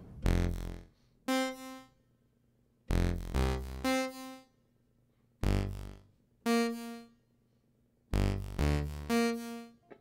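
Electronic keyboard playing an unaccompanied song intro: four short phrases about two and a half seconds apart, each a low chord followed by a higher held note, with silence between them.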